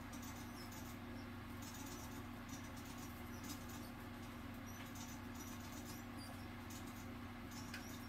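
A few faint, short, high squeaks from a white feeder rodent held in the coils of a constricting snake, over a steady low hum.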